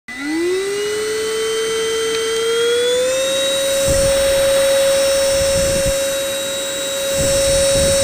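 Deerma VC20 cordless stick vacuum's motor spinning up into a loud, steady high whine, stepping up in pitch about three seconds in. Several lower rushes of noise come through under the whine.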